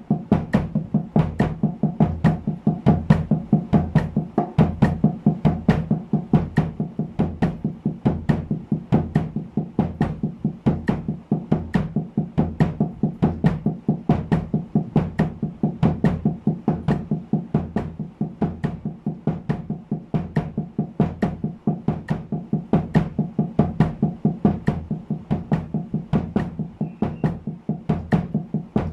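Drum practice: wooden sticks playing double strokes on a snare drum damped with a cloth, in an even sixteenth-note stream at 70 bpm, with bass drum strokes falling on the last two sixteenths of each beat.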